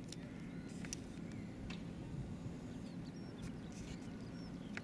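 Scattered short, high bird chirps and a few light clicks over a steady low hum.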